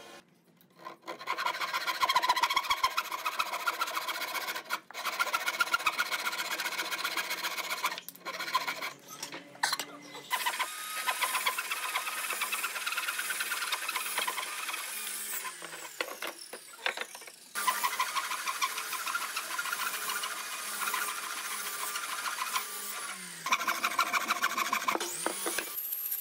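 A tool working hardwood, giving a continuous rasping, scraping sound made of rapid repeated strokes, which stops and starts abruptly several times.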